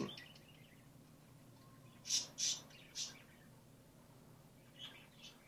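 A bird chirping: three short, high chirps about two to three seconds in, then two fainter ones near the end.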